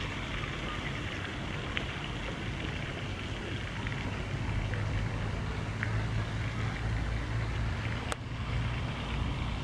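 Outdoor ambience: a steady hiss with a low rumble that grows louder midway, and one sharp click near the end.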